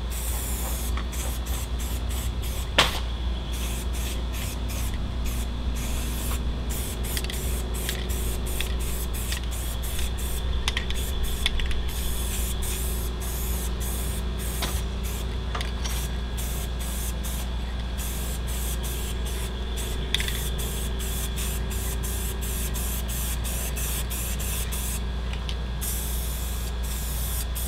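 Aerosol spray can of Krylon red oxide primer hissing in short repeated passes, the spray cutting in and out over and over as a light coat goes on. A steady low rumble runs underneath, and there is a single sharp click about three seconds in.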